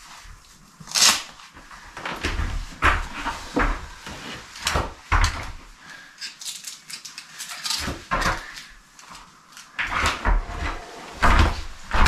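Scattered knocks, thumps and handling noises in a small wooden room, with heavier footsteps on the plywood floor near the end.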